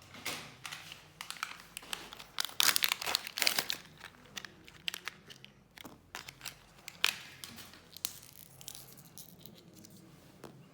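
Crinkling and tearing of wrapping: a string of crackles and clicks, densest about two to four seconds in, with one sharp click about seven seconds in and fainter handling after that.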